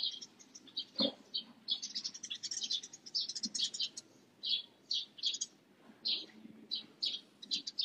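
Morning chorus of many small birds chirping: short high notes in quick clusters, with a soft knock about a second in.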